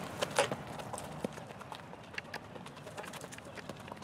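Quick footsteps of sneakers on stone paving: irregular sharp taps and scuffs, loudest at the start and growing fainter as the walker moves away.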